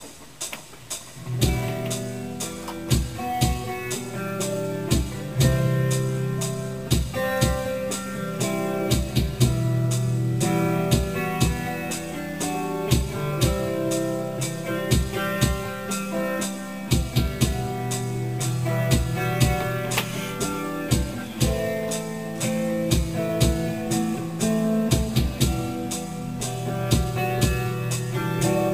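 Background music: a band piece with guitar and drum kit keeping a steady beat.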